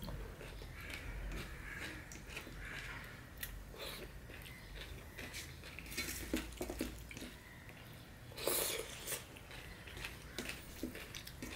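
Close-up chewing of a mouthful of rice and curry, with fingers mixing and scraping rice on a steel plate. Scattered short clicks and crackles, the loudest cluster about eight and a half seconds in.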